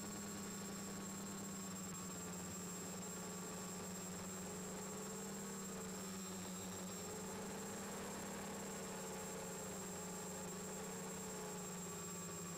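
Four Turnigy D2830 1000KV brushless motors and their propellers on an X550 quadcopter humming steadily in flight, heard from a camera mounted on the frame, their pitch wavering gently as the flight controller adjusts speed. A thin steady high whine runs over the hum.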